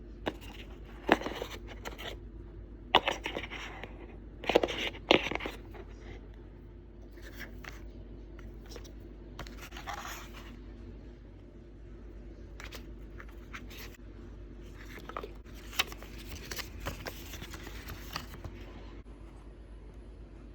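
Cardboard product box and its packaging being handled and opened: several sharp clicks and knocks in the first few seconds, then scraping and rustling, with another sharp click about three-quarters of the way through.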